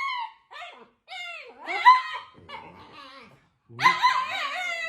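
Dog vocalizing: a few short high calls falling in pitch, then a longer wavering call near the end.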